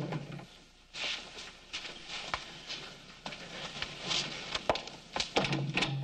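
Knocks and clicks of a door being handled and footsteps on the floor, over a light hiss.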